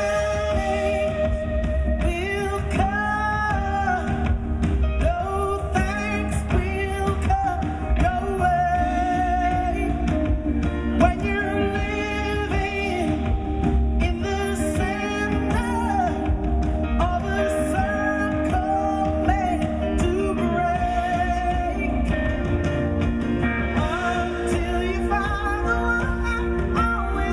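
A live band playing a song, with a woman singing lead over electric guitar and percussion.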